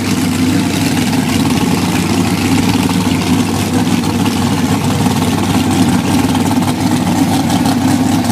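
Gasoline dragster's engine idling steadily, a loud, even exhaust drone through the open headers.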